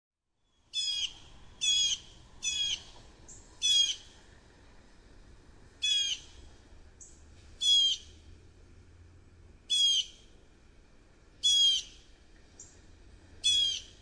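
American robin calling: nine short, high phrases, each a quick run of notes, repeated at uneven gaps of one to two seconds, with a few fainter single notes between them.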